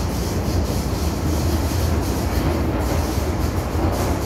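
Inside the passenger car of an MTR M-Train, running between stations: a steady, loud low rumble of wheels on rail with a hiss above it.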